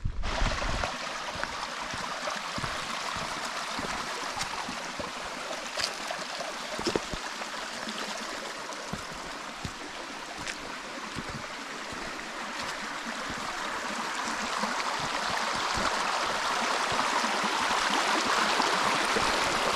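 Water running steadily in a stone-and-earth acequia (mountain irrigation channel), a continuous rushing that grows louder over the last few seconds.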